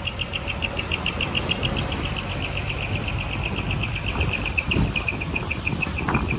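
Heavy earthmoving machine's diesel engine running with a low, steady rumble. Over it, an insect chirps in rapid, even pulses, about eight a second.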